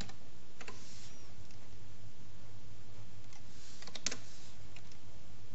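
Computer keyboard keystrokes, a few scattered taps with a short flurry of keys about four seconds in, over a steady low hum.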